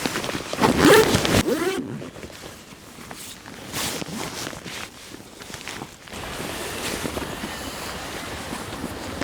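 Wind and surf noise with rustling and handling sounds, scattered from about two to six seconds in. The loudest moment is a short pitched sound about a second in.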